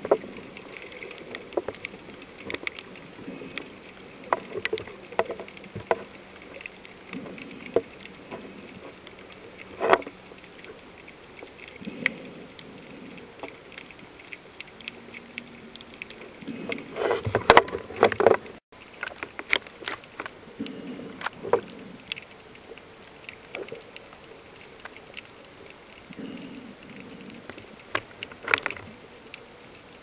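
Underwater sound through a camera held below the surface: irregular clicks and knocks over a muffled wash of water, with a burst of louder knocks a little past the middle. A faint low hum runs underneath for stretches.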